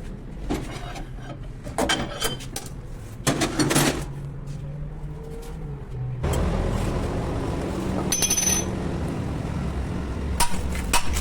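Metal parts and tools clinking and clanking several times, followed about six seconds in by a steady low hum that runs on, with a brief hiss partway through.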